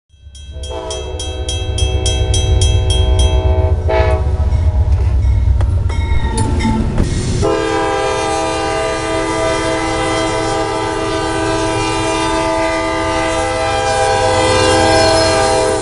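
Diesel freight locomotive's air horn blowing as the train reaches a level crossing. A first blast runs for about three seconds, with a crossing bell dinging rapidly over it. After a stretch of low train rumble, a long, steady multi-tone blast starts a few seconds later and holds to the end.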